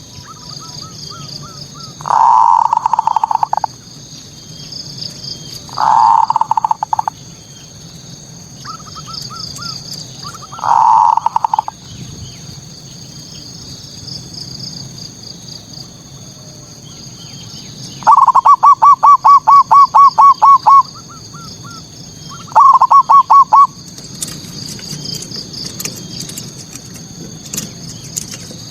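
Male zebra dove (perkutut) singing, the manggung song used as a lure for rival males. It gives loud, short runs of rapid cooing notes: three brief phrases, then a longer fast run of about a dozen notes and a shorter one after it. A steady high chirring of insects runs underneath.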